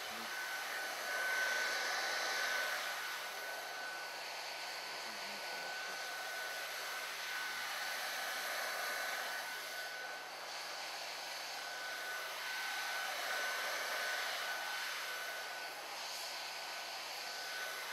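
A CV1981 industrial heat gun with a reflector nozzle blowing hot air steadily, with a steady high whine over the rush of air. The air noise swells and fades as the gun is swept around a molded heat-shrink part to recover it onto the adapter.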